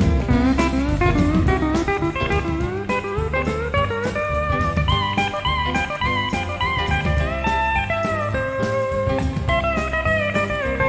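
Country band's instrumental break: a lead guitar plays a melody of sliding, bending notes over bass and a steady drum-kit beat.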